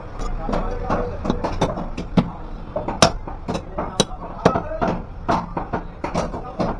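Heavy meat cleaver chopping through goat legs on a wooden chopping block: a run of sharp, uneven chops, a few a second, the loudest about three and four seconds in.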